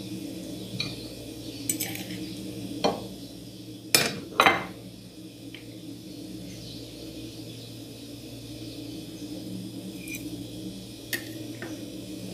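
Kitchen knife and fork clinking against plates as a slice of pie is cut and lifted onto a small plate. There are a few sharp clinks, the loudest two about four seconds in and one more near the end, over a steady low hum.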